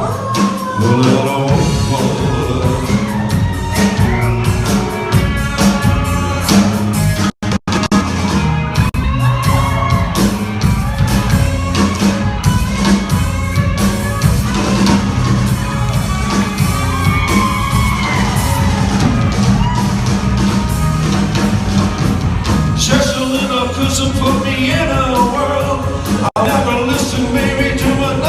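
Live rock and roll band with a male singer, recorded in a large hall on a phone. The sound cuts out briefly about seven and a half seconds in and again near the end.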